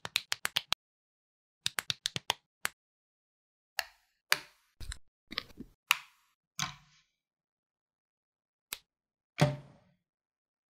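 Plastic building bricks clicking and snapping together during assembly: quick runs of sharp clicks, then scattered clicks and knocks as larger parts are fitted, with a heavier knock near the end.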